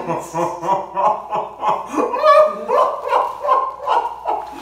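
Two people laughing in quick repeated bursts, about four a second.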